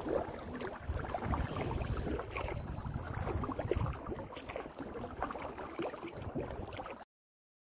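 Kayak paddles splashing and water lapping at the hull, under a steady wind rumble on the microphone; the sound cuts off abruptly about seven seconds in.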